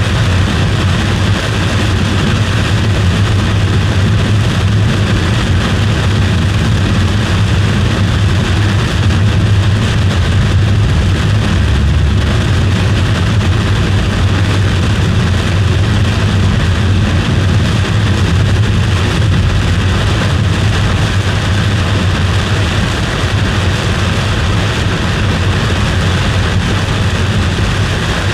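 A vehicle driving: a steady low road-and-engine rumble with a constant hiss over it.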